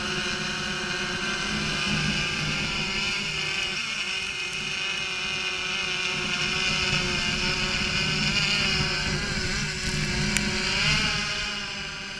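Quadcopter drone with guarded propellers hovering close by: a steady, many-toned propeller buzz whose pitch wobbles and glides as it manoeuvres in the last few seconds.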